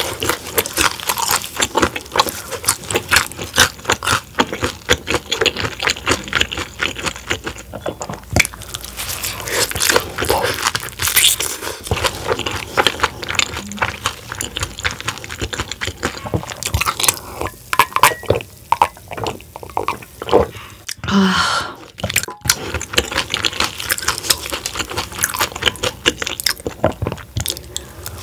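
Close-miked eating of fried soft-shell crab: the crisp batter and soft shell crunch and crackle in quick, irregular bites, with wet chewing between them.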